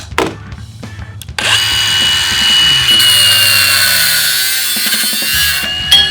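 Workshop power tool starting about a second and a half in and running loudly and steadily, with a harsh, hissing high edge; a few light clicks and knocks come before it.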